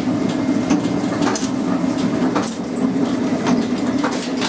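Dough sheeter running: a steady motor hum with irregular clacks and knocks from the machine.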